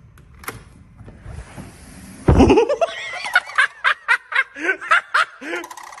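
A click from the patio door's handle, then about two seconds in sandhill cranes start a loud call broken into quick repeated pulses, several a second.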